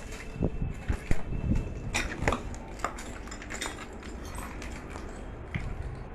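Irregular crunching, clinking and knocking of broken glass and debris, as from footsteps through a shattered room.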